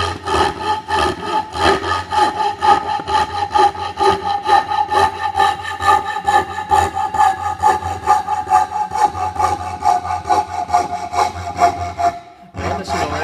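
Coping saw cutting a straight line through plywood in fast, even back-and-forth strokes, with a ringing tone under the strokes that slowly sinks a little in pitch. The strokes stop briefly near the end, then start again.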